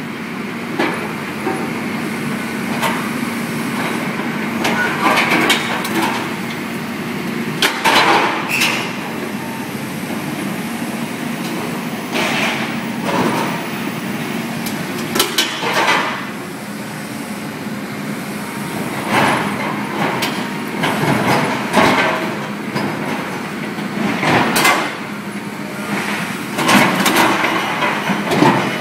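Wheeled demolition excavator's diesel engine and hydraulics running steadily while its MBI SH180R scrap shear cuts steel, with repeated sharp metallic bangs and clanks at irregular intervals as pieces are sheared off and drop into the skip.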